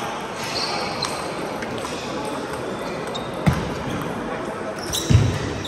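Table tennis ball knocking sharply a few times, once a little past the middle and a couple of times near the end, over the steady background noise of a large sports hall.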